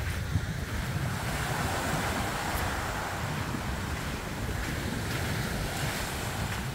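Small ocean waves breaking and washing up a sandy beach, with a swell of surf hiss about two seconds in. Wind buffets the microphone, adding a low rumble.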